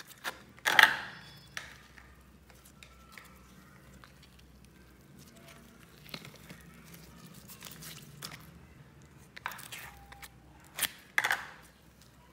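Glitter slime squeezed and kneaded by hand, making sticky, wet squelches. The loudest squelches come about a second in and twice more near the end, with quieter handling sounds between.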